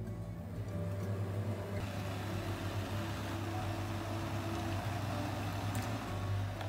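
Water boiling in a saucepan on an induction cooktop: a steady low hum from the hob, joined about two seconds in by the bubbling of the water.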